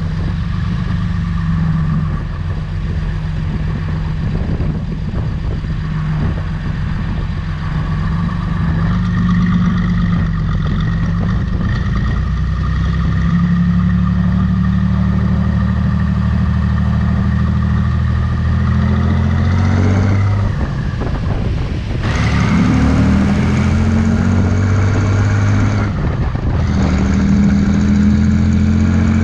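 John Deere 3140 tractor's six-cylinder diesel engine running while towing a trailer on the road. The engine note drops suddenly about two-thirds of the way through and again a few seconds later, climbing back in pitch after each drop, as at gear changes.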